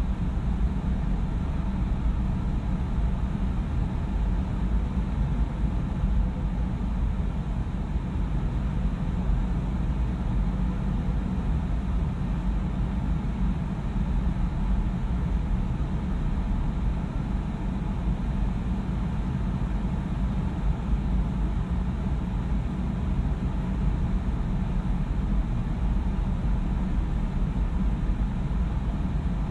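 Steady low rumble of a car's engine and tyres, heard from inside the cabin in slow, heavy traffic.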